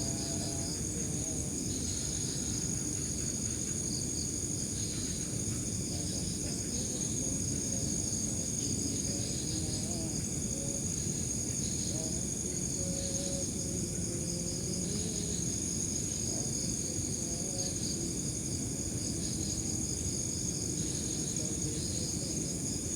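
Night insects, crickets among them: a steady high trill with a second chirping call beneath it that pulses about once a second, over a low background rumble.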